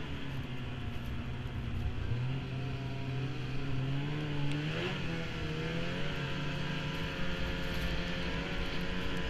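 Snowmobile engine running under way on a trail; its pitch climbs steadily for a couple of seconds, dips briefly about five seconds in, then holds steady.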